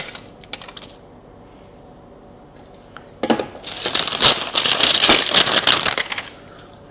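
Perfume packaging being unwrapped by hand: a few light clicks, then about three seconds of dense crinkling and crackling as the wrapping is torn off and crumpled.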